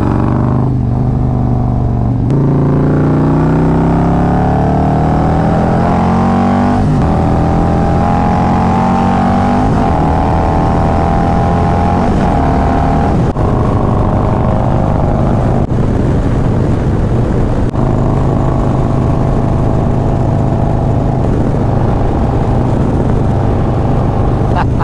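Harley-Davidson Road Glide's Milwaukee-Eight V-twin accelerating hard, its pitch climbing through the gears with upshifts about seven and ten seconds in, then running steadily at cruising speed. Wind rushes over the bike throughout.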